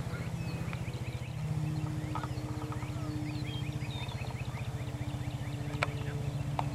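Steady low hum with a fast, even pulse, from a motor running, while small birds chirp over it; two sharp clicks near the end.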